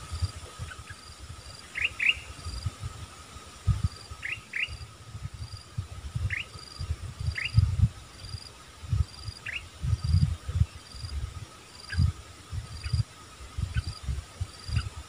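A bird gives short, quick rising call notes, singly or in pairs every second or two, over steady insect chirping and trilling. Irregular low rumbles of wind buffeting the microphone are the loudest sound.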